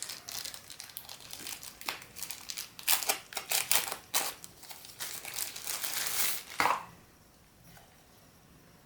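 Packaging crinkling and rustling in irregular bursts as it is handled and unwrapped from the charger, stopping about seven seconds in.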